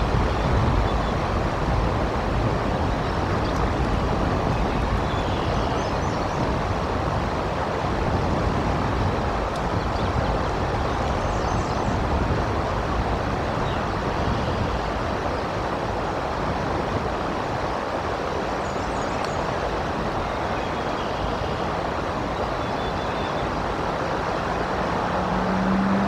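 Steady rush of wind and rain on an outdoor nest-cam microphone, with a few faint high bird chirps through it and a low hum swelling near the end.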